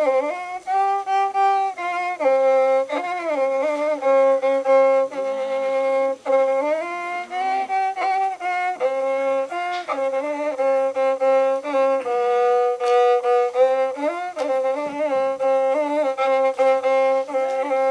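A tribal bowed folk fiddle played solo: a slow melody of held notes with slides between them, bowed continuously.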